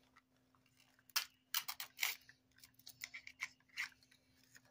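Thin plastic wrapping crinkling and tearing as a Mini Brands 5 Surprise capsule is peeled open by hand, in a scatter of short crackles that cluster about one, two and three and a half seconds in.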